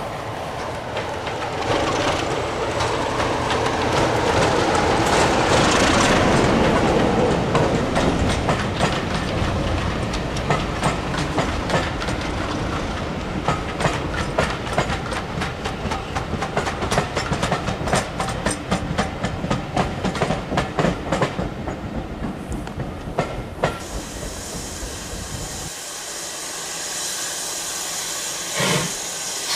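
British Rail Class 33 diesel locomotive's Sulzer engine passing at speed, loudest about six seconds in, followed by the coaches' wheels clicking rhythmically over rail joints as the train goes by and fades. Near the end a steady hiss takes over.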